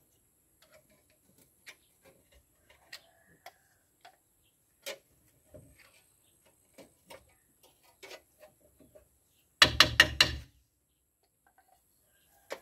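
Metal hand tools clicking and scraping on a Toyota Land Cruiser BJ60's drum-brake assembly as the jammed brake piston is worked on: scattered light ticks, then a quick run of four loud knocks about ten seconds in.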